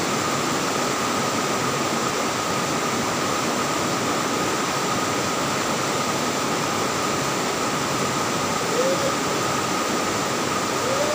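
Electric fan running close by: a steady whoosh of moving air with a constant faint whine.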